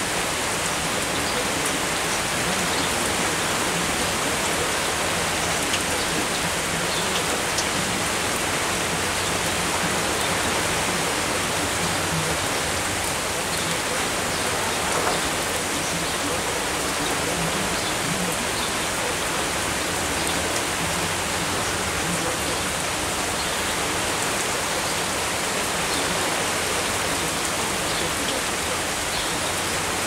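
Steady downpour of rain, with scattered sharper taps of single drops landing close by.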